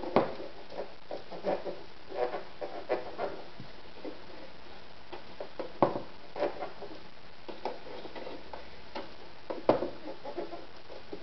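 AEG NM 376 household sewing machine worked slowly by hand at the handwheel, its mechanism giving irregular clicks and knocks with no steady motor hum. The sharpest knocks come near the start, around the middle and near the end.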